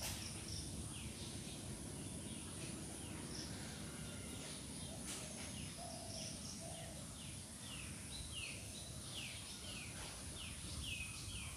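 Faint background birdsong: a string of short, falling chirps, coming quickly one after another in the second half, over a steady hiss.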